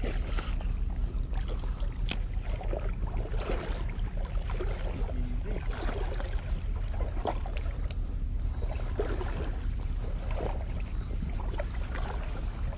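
Spinning reel being cranked on a lure retrieve, its turning heard as scattered small clicks and scrapes, over a steady low wind rumble on the microphone.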